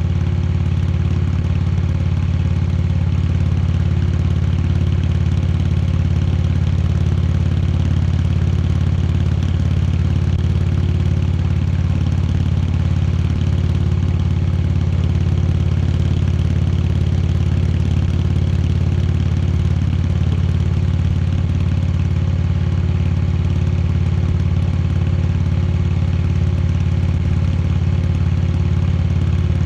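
Indian Chieftain Dark Horse's V-twin engine running steadily at an unchanging speed, with no revving.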